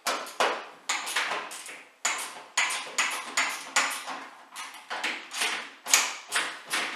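Small socket ratchet clicking in quick back-and-forth strokes, about three a second, as a bolt in the washing machine's bottom corner is undone.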